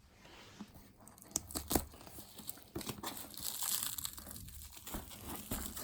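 Packaging crinkling and rustling as it is handled, with scattered sharp clicks and a longer rustle about three seconds in.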